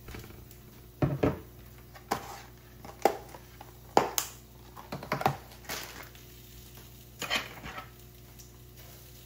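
Clear plastic clamshell food containers and packaging handled on a stone counter: a string of about ten sharp clicks and crackles spread over several seconds, ending about two thirds of the way in.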